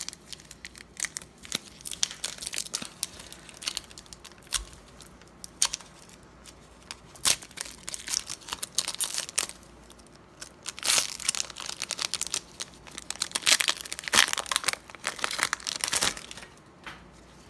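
Foil wrapper of a Pokémon TCG booster pack being torn open and crinkled by hand, a run of sharp crackling rustles. They grow louder about eleven seconds in and again in a busy stretch near the end.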